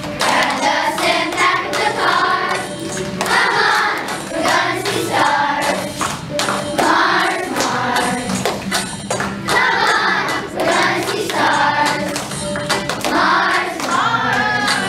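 A children's choir singing a song with musical accompaniment.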